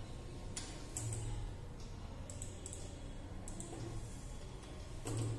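Computer mouse clicks and keyboard key presses while an online form is filled in: scattered sharp clicks over a steady low hum.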